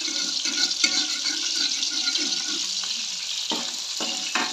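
Water running steadily from a tap, a continuous rushing hiss.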